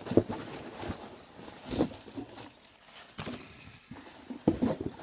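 Paper packing material rustling and crinkling as it is pulled out of a cardboard box, in irregular crackles with a few sharper knocks.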